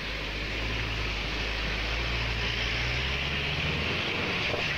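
Pickup truck engine running under load as it drives through deep mud: a low, steady drone under a constant hiss.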